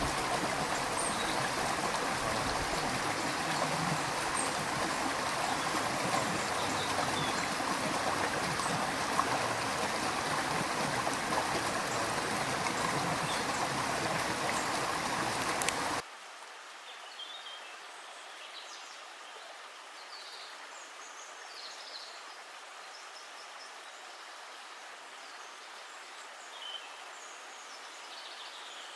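Stream water running steadily as a dense rushing hiss. About halfway through it cuts off abruptly to a much quieter outdoor ambience with faint, short, high chirps scattered through it.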